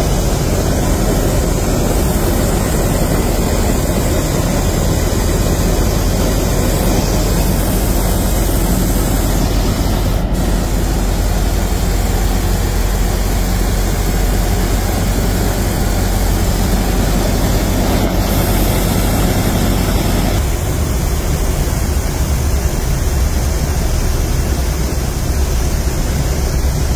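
Cabin noise of a 1929 Ford Tri-Motor: the steady drone of its radial engines and propellers with wind rush, during approach and landing. About twenty seconds in the engine note changes and the deep part of the noise drops.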